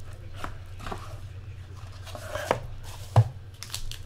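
Trading-card packs and their plastic wrapping being handled on a tabletop: light rustling with a few sharp taps, the loudest about three seconds in.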